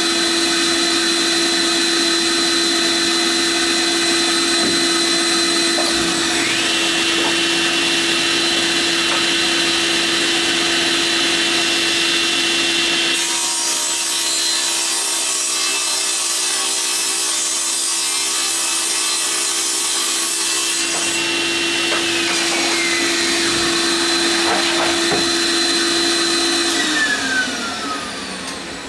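Table saw motor running steadily while ripping 3/4-inch plywood, with a stretch of harsher blade-cutting noise in the middle. Near the end the saw is switched off and its pitch falls as the blade winds down.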